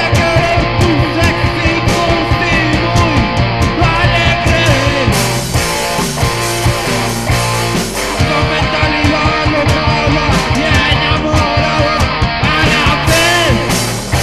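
Rock song played by a full band: electric guitar over a steady drum beat and bass.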